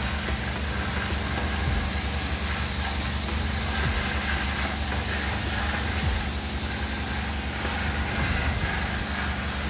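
Self-service car wash high-pressure lance spraying detergent onto a car: a steady hiss of spray over a constant low hum.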